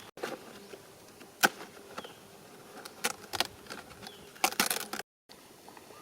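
A few short, sharp crackles or snaps over faint background noise. The loudest comes about one and a half seconds in, and a quick cluster follows a little after four seconds. The sound cuts out completely for a moment near the end.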